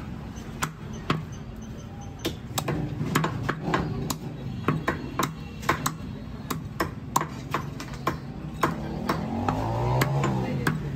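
Heavy steel cleaver chopping chicken pieces on a wooden block: sharp, irregular chops, about two a second.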